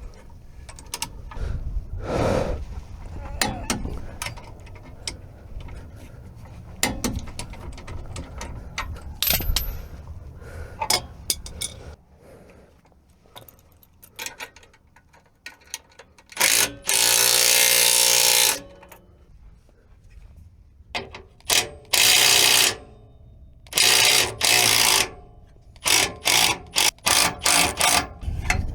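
Wrench and socket clicking and rattling on the rear lower trailing-arm bolt, then an impact wrench run in bursts on that bolt. The first burst lasts about two seconds; several shorter ones follow near the end.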